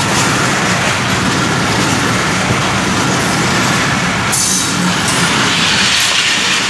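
Titumir Express passenger coaches passing close by: a loud, steady rush of wheels on rail, with a brief brighter hiss about four and a half seconds in.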